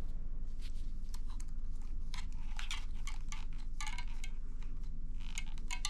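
Irregular light clicks and crackles, like small hard plastic parts or pellets being handled, over a steady low hum.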